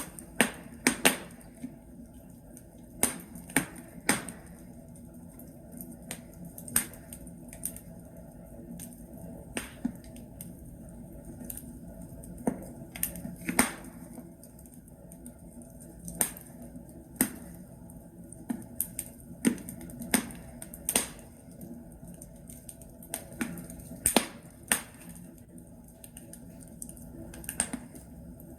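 Wood fire in a fireplace: burning logs crackling, with irregular sharp pops and snaps every second or so over a soft steady hiss of flames.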